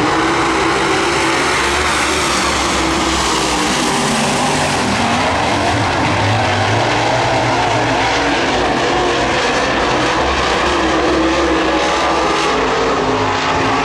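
Super late model race cars' V8 engines running at speed around the track, a loud continuous din in which the engine pitch rises and falls as the cars pass.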